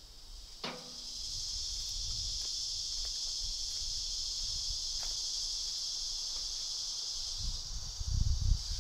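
Steady high-pitched drone of an insect chorus in the woods, which swells about a second in and holds. There is a sharp click near the start and a low rumble near the end.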